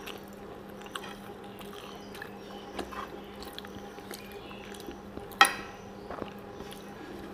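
Close-miked eating sounds: fingers squishing rice and mutton curry together on a clay plate, with wet chewing and mouth clicks. About five seconds in there is one sharp, loud click.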